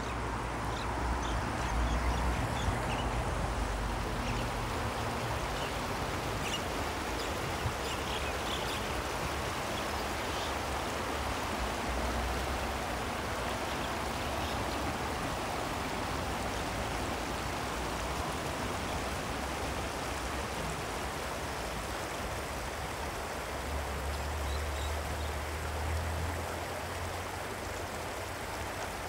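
Ak-Buura river water rushing steadily. A low rumble comes and goes, strongest near the start and again about 24 seconds in.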